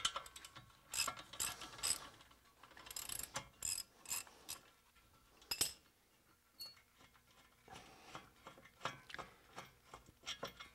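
Socket ratchet clicking in short runs of quick clicks as a caliper mounting bracket bolt is backed out, thinning to a few scattered metal clicks in the second half.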